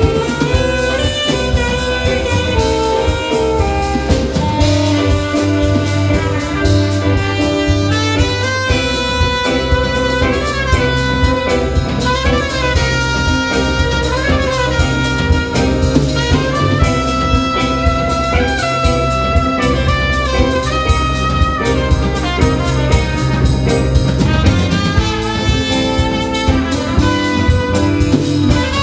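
Jazz band playing live: alto saxophone and trumpet lines over a drum kit and bass guitar, with bent, sliding horn notes through the middle.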